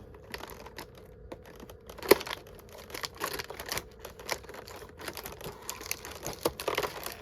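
Advent calendar packaging being torn and opened by hand: paper and plastic crinkling and tearing with irregular small clicks and one sharp snap about two seconds in.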